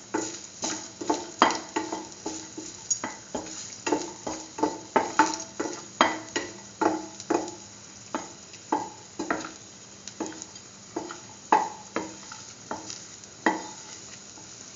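A utensil stirring cashews frying in ghee in a stainless steel pan, knocking and scraping on the pan about twice a second so that each stroke briefly rings the metal, over a faint sizzle.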